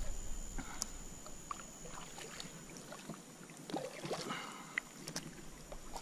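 Small movements of a kayak on calm water: light water sounds from the paddle and hull, with scattered small clicks and knocks of the paddle and gear against the hull.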